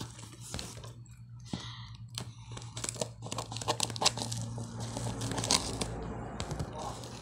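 A taped cardboard parcel being cut and torn open with scissors: irregular crackling, crinkling and tearing of packing tape, plastic wrap and cardboard, over a steady low hum.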